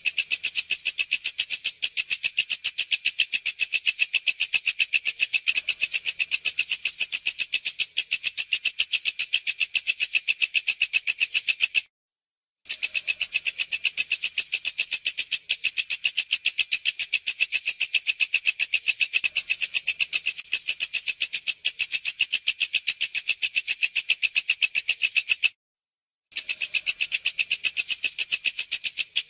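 Walang kecek (a bush cricket or katydid) stridulating: a fast, steady train of high-pitched buzzy pulses, cut by two brief silences about 12 and 26 seconds in.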